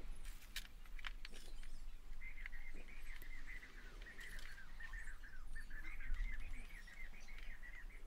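A small garden bird singing a long run of quick warbling chirps from about two seconds in, with a few light clicks of tool handling in the first second.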